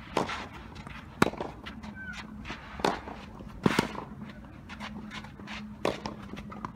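Tennis ball struck by rackets and bouncing on the court during a rally: sharp pops every second or two, the loudest about a second in.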